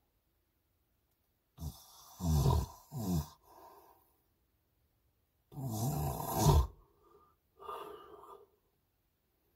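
A man snoring in his sleep, picked up by a phone's microphone inside a truck. There are two loud snores about four seconds apart, each followed by a softer breath.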